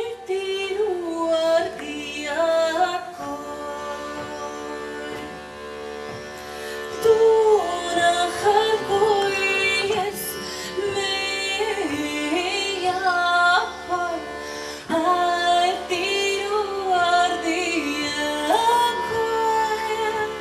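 A button accordion holding steady chords while a woman sings a wordless-sounding melody over it, sliding between notes.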